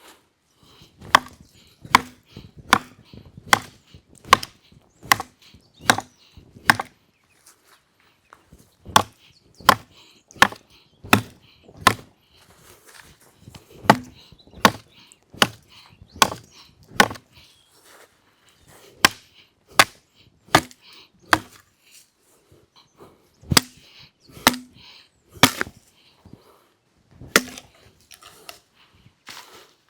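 Wood being chopped: sharp blade strikes a little over one a second, in runs of four to eight with short pauses between.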